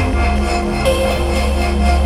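Ambient electronic music played live on synthesizers: a held deep bass drone that steps to a lower note at the start, with layered sustained tones above it. A brighter, airy high layer swells in about a second in.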